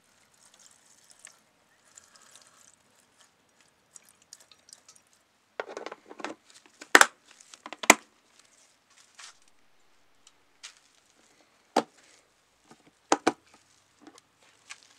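Faint trickle of paint thinner being poured at the start, then a plastic clip-lock food container's lid being fitted and its latches snapped shut: four sharp snaps, the loudest two about a second apart.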